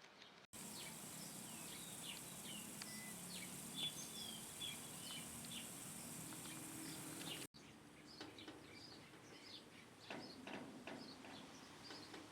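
Small birds chirping, many short high chirps and calls overlapping, over a steady high hiss in the middle part. The sound drops out briefly about half a second in and again after about seven seconds, where separate recordings are joined.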